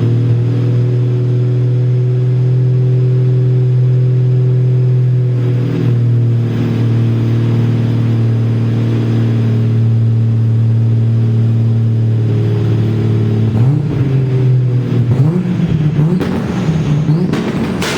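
Toyota Supra engine held on its two-step launch limiter, buzzing at a steady pitch with the exhaust popping. After about 13 seconds the revs are let go and swing up and down, and a sharp exhaust bang comes near the end.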